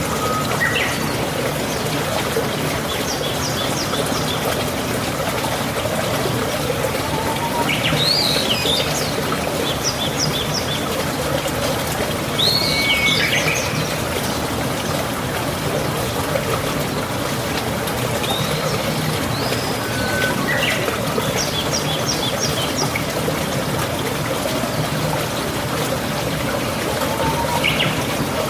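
Steady rush of running water, with birds calling over it every few seconds: short whistled chirps gliding up and down, and quick runs of high, rapid ticking notes.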